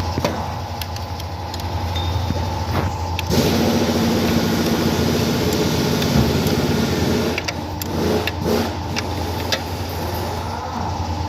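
Car engine running steadily, with a louder noisy stretch lasting about four seconds that starts some three seconds in, and scattered sharp clicks and knocks.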